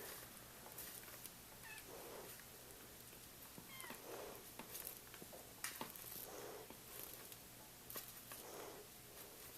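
Faint cat meows repeating about every two seconds, with a few soft clicks in between.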